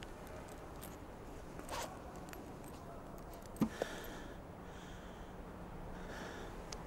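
Quiet room tone with small handling noises: a brief rustle about two seconds in, then two sharp clicks in quick succession past the middle, followed by soft breaths.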